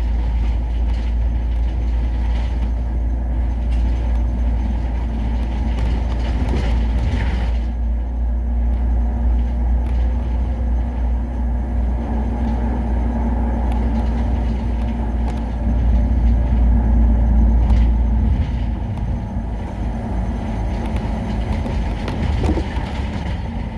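City bus engine and road noise heard from inside the cabin while driving, a steady low rumble that grows a little louder about two-thirds of the way through, then eases.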